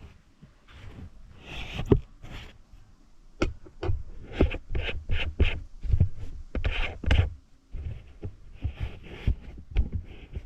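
Camera being handled close to the microphone: irregular knocks, taps and rustling.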